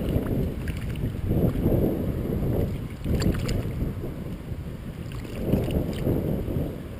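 Shallow river water splashing and sloshing in surges as a hooked fish thrashes at the angler's hand, with a few sharp splash ticks. Wind buffets the microphone.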